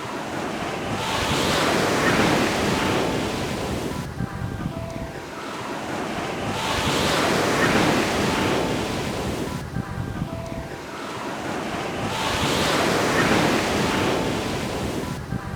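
Ocean surf breaking and washing up a beach, each wave swelling and fading away, about every five and a half seconds.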